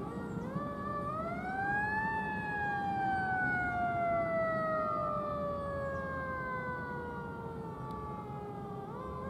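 Fire-rescue vehicle siren wailing: it winds up over about two seconds, falls slowly for about six seconds, then starts rising again near the end, over a low road rumble.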